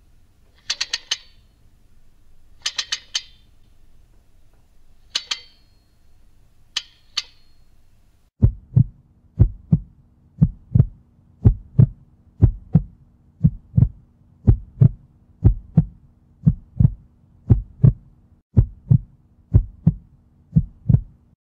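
Heartbeat sound effect: low double thumps, lub-dub, about once a second over a faint steady hum, starting about eight seconds in. Before it come four short hissing, crackling bursts.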